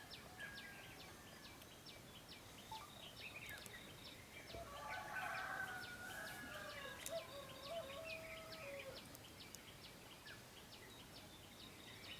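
A rooster crowing once in the distance, a drawn-out call lasting about four seconds from near the middle, over a steady background of small birds chirping.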